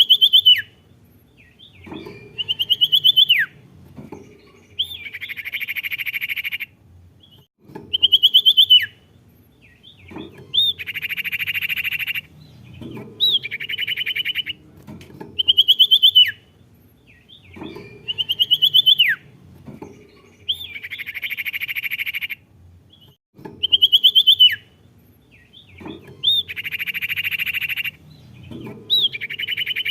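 Song of the bird that Indonesian bird keepers call a sirtu, played as a lure to make a caged bird sing. A phrase repeats every few seconds: a few sharp whistled notes, some dropping steeply in pitch, then a harsh buzzy chatter lasting a second or two.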